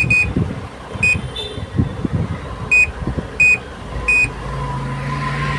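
Electronic beeps from a washing machine's repaired control board as its buttons are pressed, five short single beeps at uneven gaps. A low steady hum starts about four seconds in as the machine starts running, a sign that the board is working.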